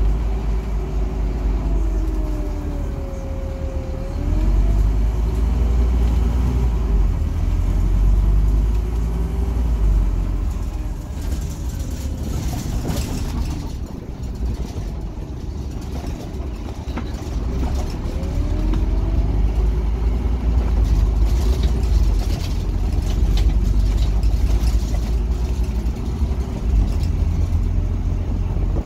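Scania NewOmnicity city bus heard from inside the passenger cabin while it drives: a deep steady engine and road rumble that swells and eases as the bus speeds up and slows. A drivetrain whine slides down and back up in pitch near the start and rises again about two-thirds through, with a spell of rattling in the middle.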